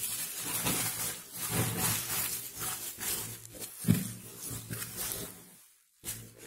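Bubble wrap and plastic packing rustling and crinkling as a hand rummages among small plastic bottles in a cardboard box, with a louder knock about four seconds in. The rustling stops shortly before the end, then comes back briefly.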